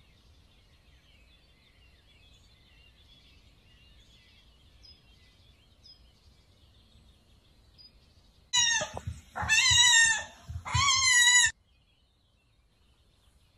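A very young kitten meowing loudly three times in quick succession, high calls that bend in pitch, about two-thirds of the way in. Before that there is only a faint background hiss.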